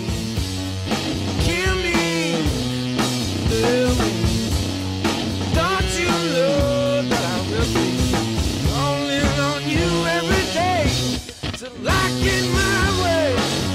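Background rock music with guitar playing a bending melody over a steady beat, with a brief drop-out about eleven seconds in.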